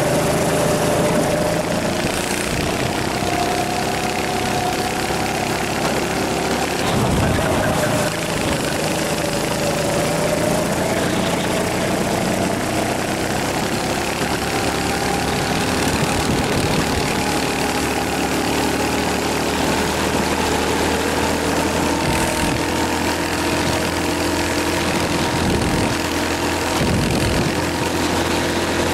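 Racing rental kart's engine running hard, heard onboard, its pitch falling and rising as it slows for corners and accelerates again, over a steady rush of wind and road noise.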